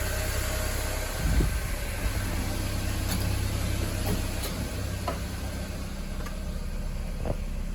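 Ford Fiesta's Zetec Rocam engine idling steadily with the air conditioning off: the normal, smooth idle before the compressor engages. A low thump about a second and a half in, and a few faint clicks.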